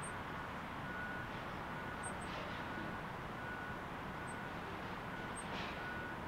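Steady outdoor background noise with a low rumble, a soft tone that repeats in short pulses, and a few faint, very high, brief chirps.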